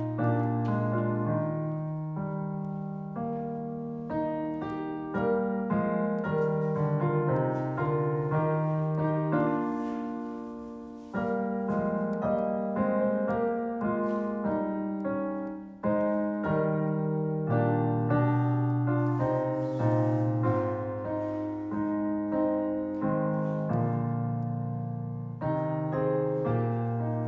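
Solo piano music: notes and chords struck and left to fade, one after another.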